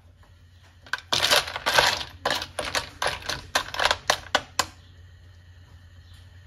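Spotted babylon snail shells clattering against each other and the wok as they are stir-fried with a wooden spatula: a rapid run of hard clacks starting about a second in and stopping shortly before the end, after which only a faint steady background remains.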